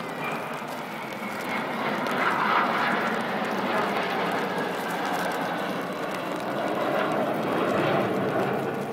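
Aircraft flying past, a broad engine rush that swells about two seconds in, stays loud with a second peak, then falls away sharply near the end.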